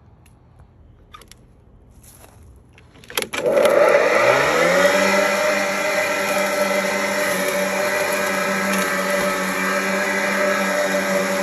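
Craftsman 40V cordless electric lawn mower starting. A click about three seconds in is followed by the motor and blade spinning up with a rising whine, which then runs on at a steady pitch.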